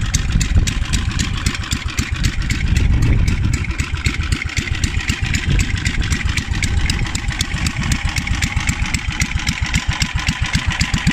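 Air-cooled ACME petrol engine of a BCS four-wheel hay mower running steadily, with an even pulsing exhaust beat.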